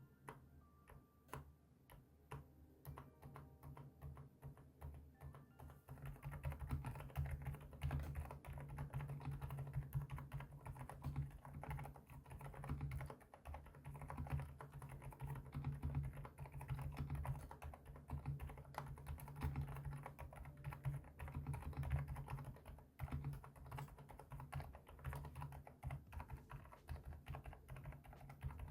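Typing on an AK-650 mechanical keyboard fitted with unlubricated Kailh Deep Sea Silent tactile switches, whose silicone dampers keep the keystrokes quiet and muffled. The keystrokes are light and sparse at first, then become a steady fast run from about six seconds in.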